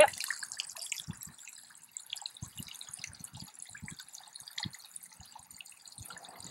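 Water dribbling from the bottom hose of a turbidity tube into shallow creek water, in small irregular drips and plops, as the tube is slowly drained until the Secchi disc at its bottom comes into view.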